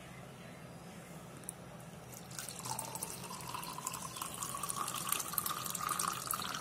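Hot pomegranate-peel decoction being poured through a strainer into a drinking glass. The liquid starts splashing in about two seconds in, and its pitch rises steadily as the glass fills.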